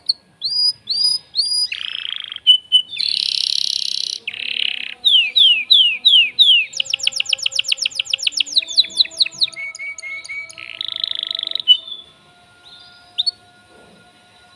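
Excited male canary singing a long, varied song: repeated notes, a run of quick downward-sliding notes and a fast trill. The song breaks off a couple of seconds before the end, and one short note follows.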